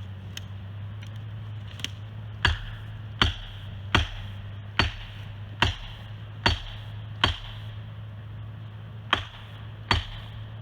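Axe blows struck in a steady rhythm, about one every 0.8 seconds, beginning a couple of seconds in with a short pause near the end. A low steady hum runs underneath.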